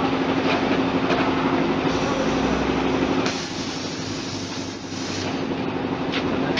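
Potato-chip frying machine's equipment running steadily: a constant hum over a broad rushing machine noise, dipping somewhat quieter for a couple of seconds midway.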